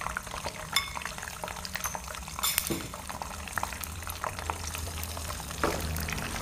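Beaten eggs frying in hot oil in a non-stick pan: a steady sizzle with scattered small pops.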